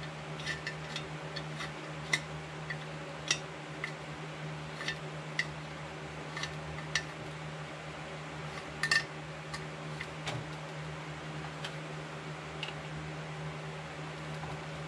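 Scattered light metal clicks and taps of a hand tool working on a chainsaw, with a sharper double clack about nine seconds in, over a steady low hum.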